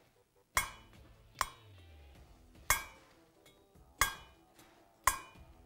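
An intake or exhaust poppet valve being tapped straight down onto its seat in an aluminium cylinder head, five sharp metallic clinks about a second apart, each ringing briefly. The valve is set down without turning so that the Prussian blue on the seat prints the valve's contact pattern.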